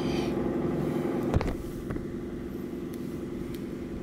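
Small plastic action figure handled and set down on a stone floor: light rustling for about a second and a half, ending in one sharp click. A steady low mechanical hum runs underneath.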